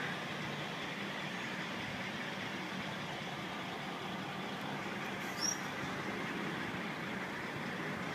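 Steady diesel idling hum with no change in level. A brief high-pitched chirp comes about five and a half seconds in.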